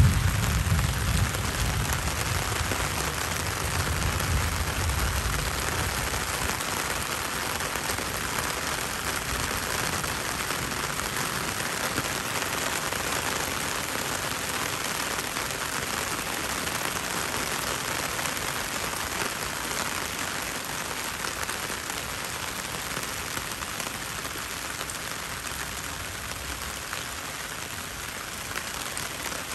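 Heavy rain pouring down on leafy plants and wet ground: a dense, even hiss that eases slowly. A low rumble fades away over the first few seconds.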